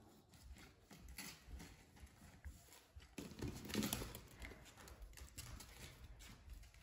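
Wire fox terrier puppies scuffling in play: faint scattered taps and clicks of paws and claws on the floor and puppy pads, with a louder scuffle about halfway through.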